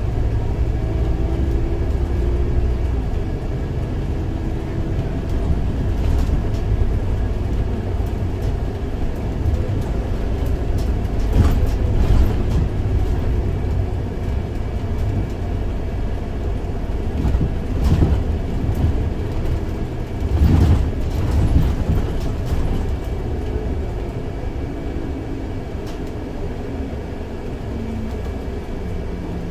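Scania OmniLink three-axle bogie bus with a biodiesel engine driving, heard from on board: a steady low engine and road rumble whose engine note shifts near the start and again near the end. A few louder thumps stand out around the middle.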